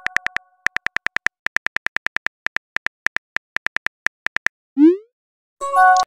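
Phone texting-app sound effects: a run of quick keyboard tap clicks in short bursts as a message is typed, then a short rising bloop as it is sent, and a bright multi-note chime near the end.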